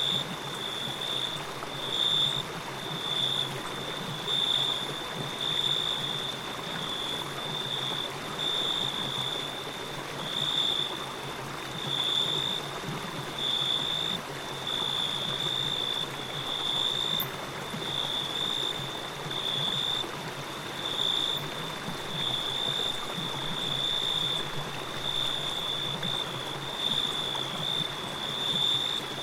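A steady, high-pitched insect trill that swells and fades about once a second, over a constant rush of running water.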